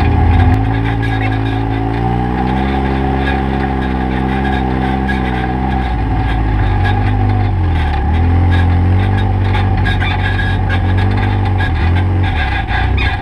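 Side-by-side UTV engine running under way at close range, its note dropping and climbing again several times as the throttle is eased off and reapplied.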